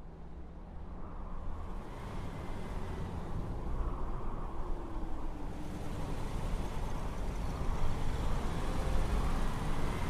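Motorcycle engines running as several bikes ride along a dirt and gravel track, getting gradually louder.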